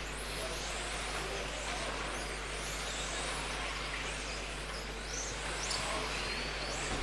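Several electric radio-controlled touring cars racing, their electric motors giving high whines that rise and fall several times as the cars accelerate and brake through the corners, over a steady wash of hall noise and a constant low hum.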